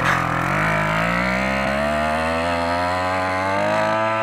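Small motorcycle engine revving hard, its pitch climbing steadily as the bike pulls away. It has a buzzing motor-pump sound, and the onlookers suspect the gearbox is already wrecked.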